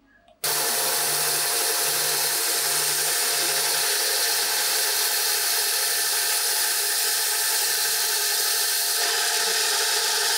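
Bench belt sander running while a small wooden workpiece is pressed against its narrow belt: a steady sanding noise over a constant motor tone. It cuts in abruptly about half a second in.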